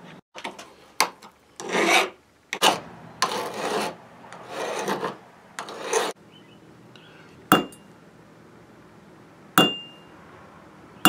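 Hand file rasping across a brass fitting held in a vise, about six strokes in the first half. Later come two sharp metal taps, each with a brief ring.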